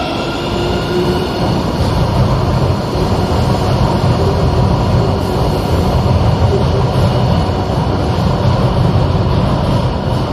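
Madrid Metro train running along the platform with a loud, steady rumble of wheels and running gear and a faint motor whine above it.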